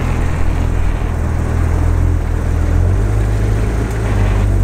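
Porsche 911 GT3 RS's naturally aspirated flat-six idling steadily through a titanium iPE aftermarket exhaust, with a low, even exhaust note.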